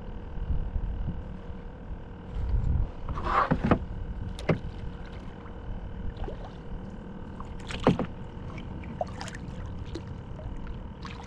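Sharp knocks and rustles of gear being handled in a kayak, the loudest about three and a half, four and a half and eight seconds in, over a steady high hum and a low rumble.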